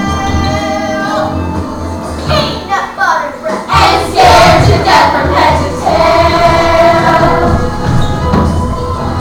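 Children's chorus singing a stage-musical number over instrumental accompaniment, with held notes; it grows louder about four seconds in.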